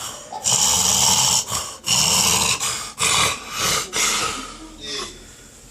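A person snoring hard: a run of about five loud, rough snores, the first the longest, the rest shorter and weaker, dying away after about four and a half seconds.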